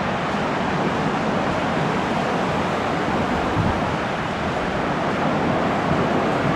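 Atlantic ocean waves washing onto the shore: a continuous rushing surf noise, with wind.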